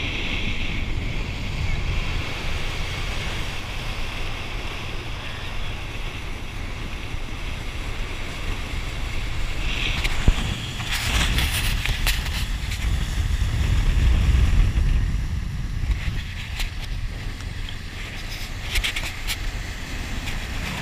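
Speedboat running at speed: a steady low rumble of the engine and rushing water under heavy wind buffeting on the microphone, with a single sharp knock about ten seconds in.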